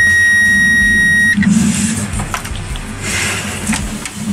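Multimeter continuity tester beeping with a steady high tone that stops about a second in, as the probes confirm a wire's connection during wire tracing. Then come scattered clicks and rustling from handling wires and tools.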